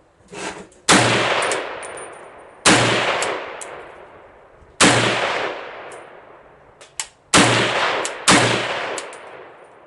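Riley Defense AK-47 in 7.62x39mm firing slow single aimed shots: five loud reports an irregular one to two and a half seconds apart, each trailing off in a long echo. A fainter bang comes just before the first.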